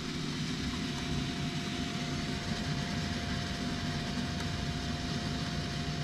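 A steady mechanical hum with a faint, steady high whine running through it.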